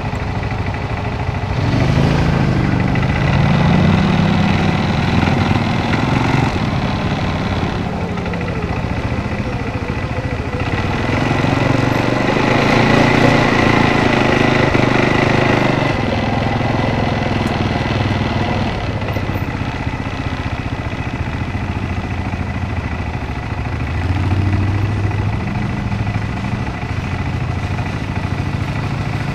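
ATV engine running while riding a rough trail, the revs rising and falling with the throttle, loudest about two seconds in and again around the middle.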